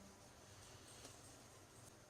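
Near silence: faint room tone with one tiny tick.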